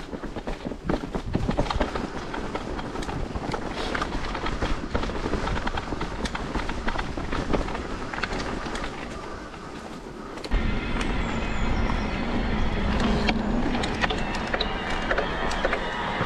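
Electric mountain bike ridden over a rough dirt trail: tyre and frame rattle with many small knocks. About ten seconds in, a louder low rumble sets in and carries on.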